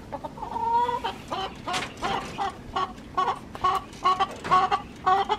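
Chicken clucking: a longer held call about a second in, then a quick run of short, repeated clucks, three or four a second.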